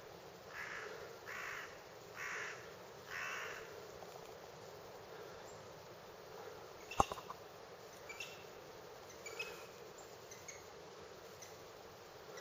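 A crow cawing four times in quick, even succession, each caw short. About seven seconds in there is a single sharp click, the loudest sound, followed by a few faint ticks.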